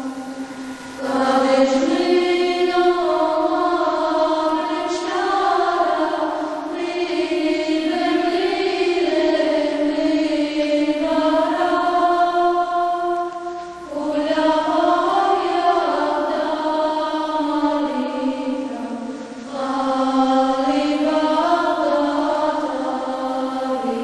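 Voices chanting one slow melodic line in unison, in long phrases with short breaks about a second in, about 14 seconds in and about 19 seconds in.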